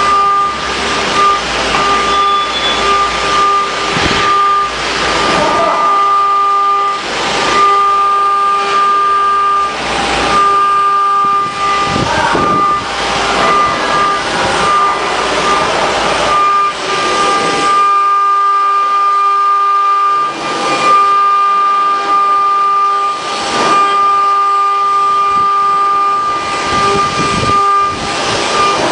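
CNC machine cutting aluminium: the spindle runs with a steady whine, and the cutting noise swells and fades every second or two as the bit works through the metal.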